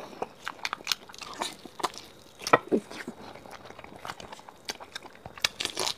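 A person chewing a mouthful of ostrich wing meat close to a lapel microphone: irregular wet mouth clicks and chewing noises.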